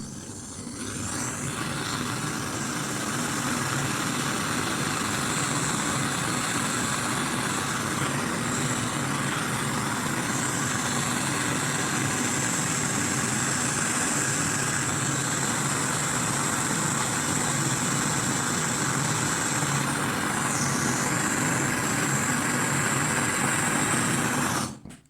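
Handheld gas blowtorch burning with a steady rushing hiss, heating a brass 9 mm Luger casing on a coin until a small piece of copper-silver brazing rod melts and joins them. The sound swells over the first couple of seconds and cuts off suddenly near the end.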